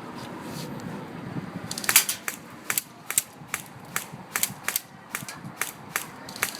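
Airsoft guns firing during a game: a string of sharp single shots, unevenly spaced at two to four a second, starting about two seconds in.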